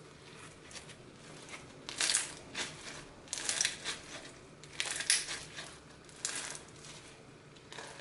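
Foam-bead slime, clear slime packed with polystyrene foam beads, squeezed and kneaded in the hands, the beads giving crunchy crackling. It comes in four bursts from about two seconds in, roughly one every second and a half.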